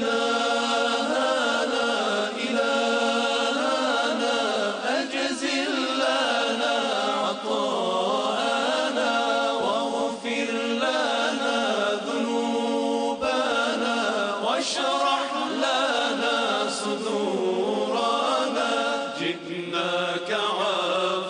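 Group of men singing an Islamic devotional chant together through microphones, in long held notes that slide up and down in pitch.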